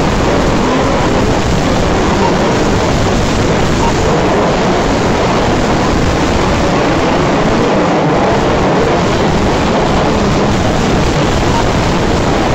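Radio-controlled 4WD off-road racing cars running laps on an indoor dirt track: a steady, loud wash of motor and tyre noise, with faint whines that rise and fall as the cars accelerate and brake.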